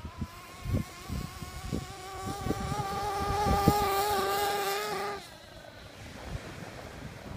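Kyosho Inferno Neo ST Race Spec RC stadium truck running fast over heavy sand, its motor giving a steady high-pitched buzz that grows louder as it passes close, then drops away suddenly about five seconds in. Wind buffets the microphone.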